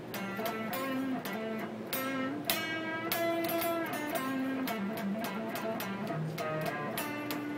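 Sunburst Stratocaster-style electric guitar playing blues: a run of picked single-note licks, with a fuller strummed chord about two and a half seconds in.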